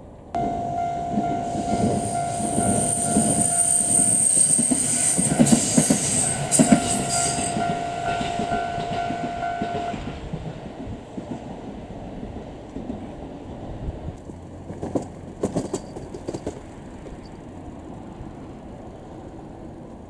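A train passing close over the level crossing: wheels clattering and rumbling for the first eight seconds or so, with a steady high ringing tone that carries on until about ten seconds in. The sound then fades to a low background with a few light clicks.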